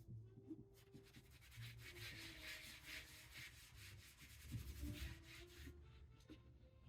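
Hand-burnishing a relief print: a tool rubbed back and forth over washi paper laid on an inked block, a faint steady scrubbing that stops about six seconds in.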